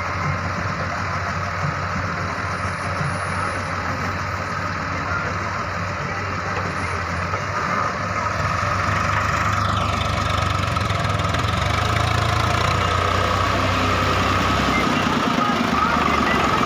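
Diesel engine of an Ace AX130 backhoe loader running steadily while working, growing louder about halfway through.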